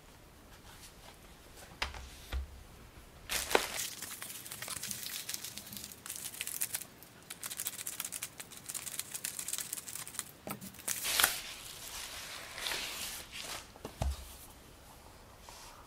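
Plastic bubble mailer crinkling as it is handled and cut open along its edge with scissors, in dense irregular rustles with sharp snips. There are soft knocks of handling about two seconds in and near the end.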